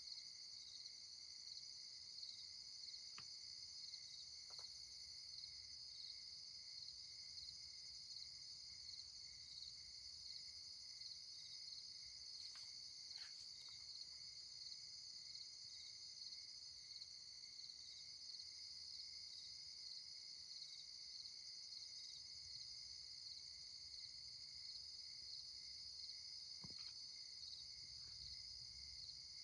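Faint, steady chorus of night insects chirping in a fast, even pulse, with a weaker lower-pitched trill under it.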